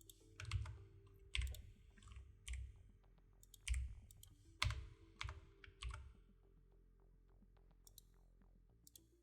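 Faint computer keyboard keystrokes, about a dozen irregular taps over the first six seconds and a few more near the end, with a low steady hum underneath.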